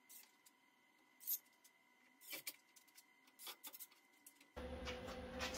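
A few light, scattered metallic clicks and clinks of small hardware and tools being handled, the sharpest about a second in. A steady background hum comes in near the end.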